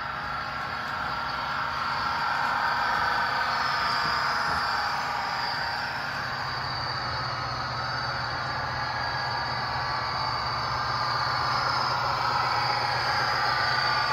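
Simulated diesel engine sound of a Budd RDC railcar, played by an ESU LokSound DCC decoder through the small onboard speaker of an HO scale Rapido model while it runs steadily, growing a little louder about two seconds in as it approaches.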